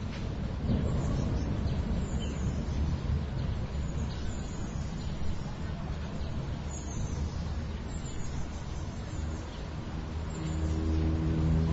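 City yard ambience: a steady low rumble of distant city noise with birds chirping briefly every second or two. Near the end a vehicle engine's hum comes in and grows louder.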